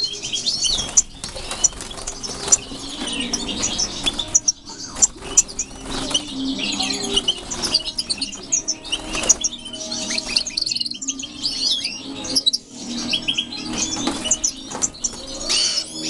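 Caged European goldfinches twittering and chirping continuously in quick high notes, with the flutter of wings as a bird flies about the cage and many short clicks and taps.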